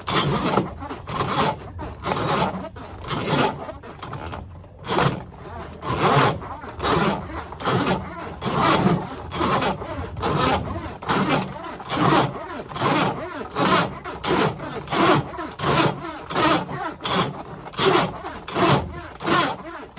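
Steel drain-cleaning cable being pulled back out of a main sewer line, rasping and scraping in a steady rhythm of strokes, about one every three-quarters of a second.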